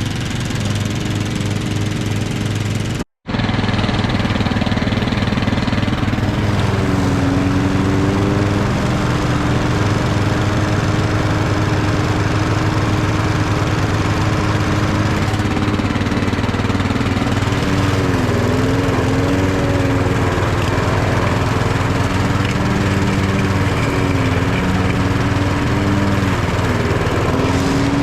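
Garden tractor and the push-mower engine of a home-made tow-behind mower running steadily during a test run. The sound cuts out for an instant about three seconds in, and the engine pitch dips briefly a few times.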